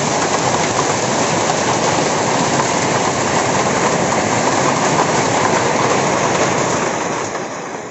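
Hailstorm: hail and rain falling steadily, a dense hiss of countless small hits, fading out near the end.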